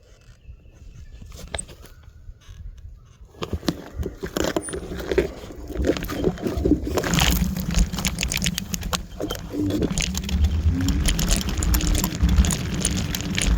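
Kaabo Wolf Warrior dual-motor electric scooter riding over a rough dirt trail: rapid rattling and clatter over a low rumble. It is fairly quiet for the first few seconds, and the rattling picks up and grows louder from about four seconds in.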